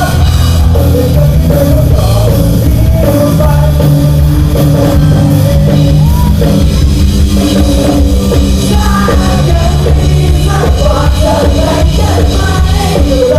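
Live rock band playing loudly, with vocalists singing over drums.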